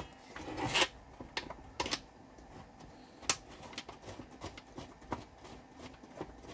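Irregular small clicks and taps of screws and a metal wire fan guard being handled and finger-tightened onto a Noctua fan's plastic frame.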